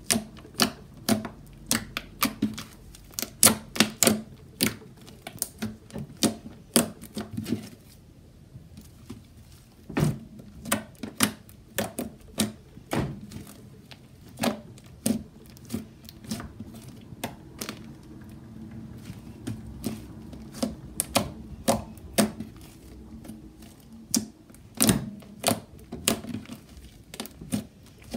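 Hands pressing and kneading pink slime, which gives off sharp, irregular clicks and pops as trapped air bursts, several a second, with a short lull about eight seconds in.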